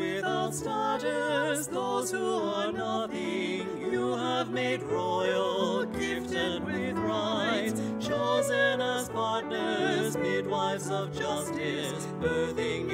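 A hymn sung with vibrato over sustained keyboard accompaniment.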